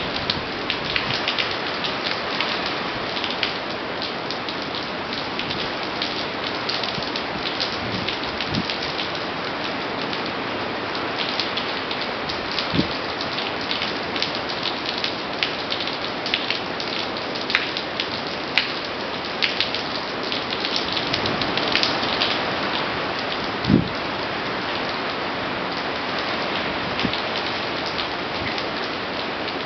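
Heavy hurricane rain driven by strong gusting wind: a dense, steady hiss of rain on the ground and roof, with scattered sharp drips and a few low thumps. It swells a little a little past two-thirds of the way through.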